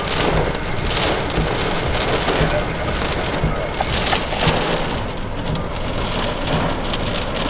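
Heavy wind-driven rain pouring down in a severe thunderstorm's gust front, a dense steady rush that surges with the gusts.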